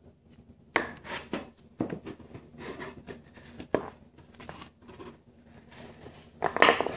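Ratchet strap being handled around a kerf-cut plywood panel: the nylon webbing rustles and the metal ratchet buckle clicks and knocks against the wood in irregular handling noises, with a louder burst near the end.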